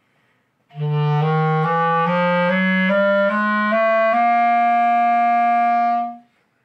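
Clarinet playing a chromatic exercise: starting under a second in, about nine notes climb in semitone steps, then the top note is held for about two seconds before it stops.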